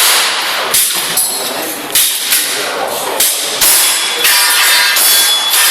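Airsoft pistol firing a string of sharp shots, roughly every half second to second. Some shots are followed by a brief metallic ringing.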